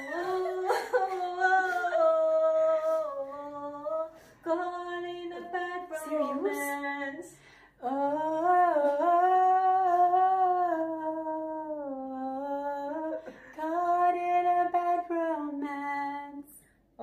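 A woman's voice singing unaccompanied in four long phrases of held, wavering notes, with short breaks between them.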